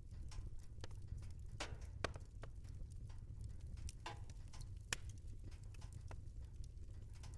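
Wood fire crackling in a fireplace: irregular sharp pops and snaps over a steady low rumble, with two louder pops about two and five seconds in.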